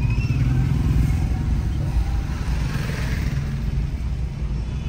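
Car driving slowly, with a steady low engine and road rumble heard from inside the cabin. A short rising-then-falling chirp sounds just after the start.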